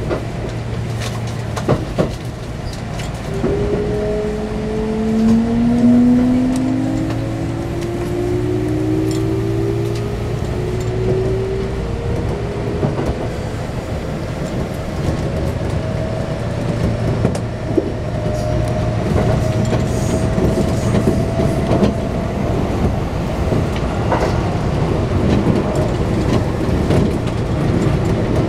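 Electric train running, heard from inside the car: the traction motors' whine climbs in pitch as the train gathers speed, over a steady low hum and rumble of running noise, with a few sharp clicks from the wheels on the rails.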